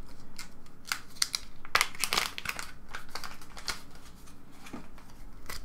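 A small plastic packet crinkling and rustling in irregular crackles as it is opened by hand and a replacement 3D-printer hot end nozzle is pulled out of it.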